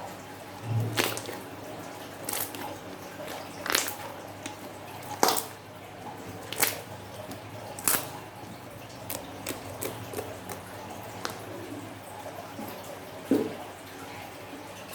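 Sticky slime being squeezed and pressed by hand, giving sharp wet pops and clicks about every second and a half, with softer squishes between.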